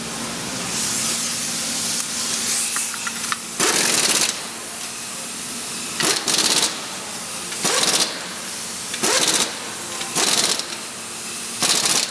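Pneumatic impact wrench firing in six short bursts of about half a second each, starting a few seconds in, over a steady compressed-air hiss.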